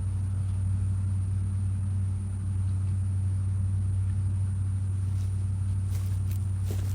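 A steady low hum, like a motor running, with a few faint clicks near the end.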